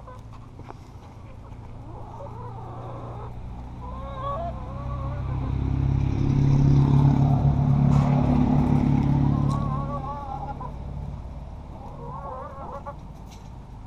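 A passing road vehicle's engine hum swells to a peak about seven to nine seconds in, then fades. Hens cluck now and then over it.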